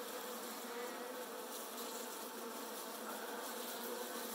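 A newly installed package of Saskatraz honeybees in an open Layens hive, buzzing with a steady hum. The beekeeper calls them relaxed bees.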